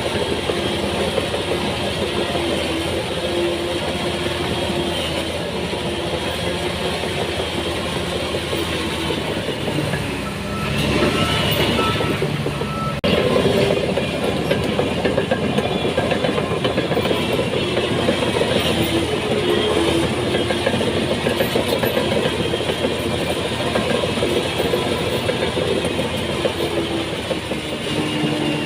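Shantui DH17C3 crawler bulldozer working: its diesel engine running under load while the steel tracks clank and rattle. A reversing alarm beeps a few times in the middle and again near the end.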